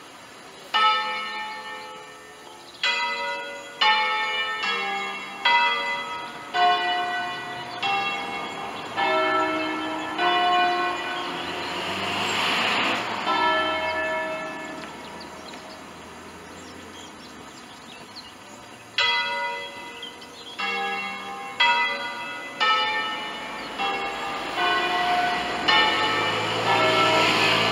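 Hand-rung church bells, a five-bell Ambrosian peal cast by Pruneri in 1887, swung full circle on their wheels. Single strokes of different bells ring out one after another at uneven intervals in a melodic sequence, each note left to ring on. The strokes pause around the middle and then resume.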